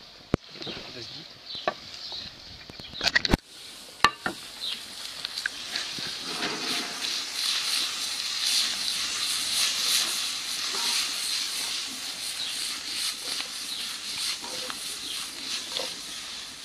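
Oyster mushrooms and apple frying in a wok over a wood fire, with a few sharp knocks against the pan in the first four seconds. After that a steady crackling sizzle builds up from about six seconds in.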